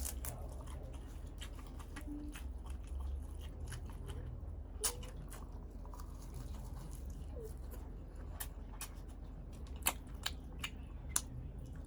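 A person chewing and eating balut, a boiled fertilised duck egg, close to the microphone: scattered sharp wet clicks and smacks of the mouth over a steady low hum.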